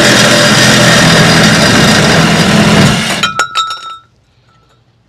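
Power drill cutting a hole through sheet metal at full speed, stopping abruptly about three seconds in as the cut goes through. A brief clatter of metal clinks with a short ringing note follows.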